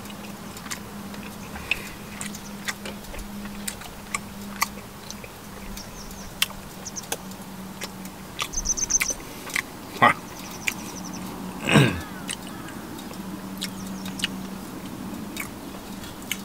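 Beef sizzling and crackling in a frying pan on a portable gas camp stove, with metal tongs clicking against the pan. A dog barks in the distance twice, about ten and twelve seconds in, and small birds chirp briefly.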